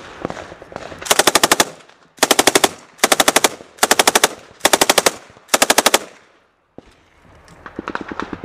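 MK 48 7.62 mm belt-fed machine gun firing six short bursts of several rounds each, loud and close. After a brief lull, fainter, lighter gunfire sets in near the end.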